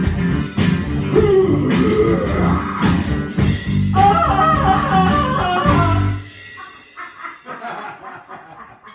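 A small rock band playing live in a room: drum kit and electric guitar with a steady beat. The song stops about six seconds in, after which it is much quieter.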